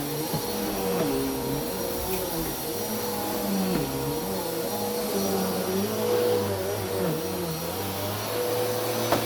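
Bissell vacuum cleaner running over carpet: a steady motor whine, with lower tones under it dipping and rising every second or so. A sharp knock comes near the end.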